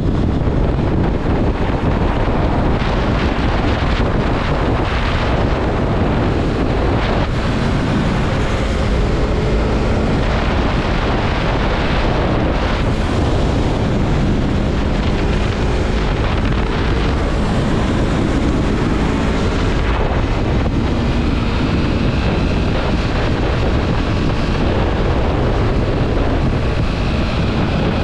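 Wind buffeting the microphone while riding a Yamaha MT-03 motorcycle at speed, with the engine's drone faintly underneath, its pitch drifting slowly up and down.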